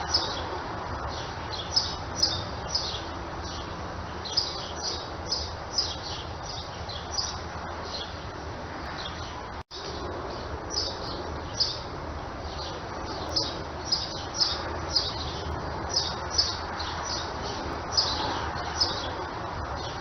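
Small birds chirping, short high chirps coming in quick clusters every second or two over a steady outdoor background hiss. About halfway through, the sound cuts out for an instant, like an edit or loop point.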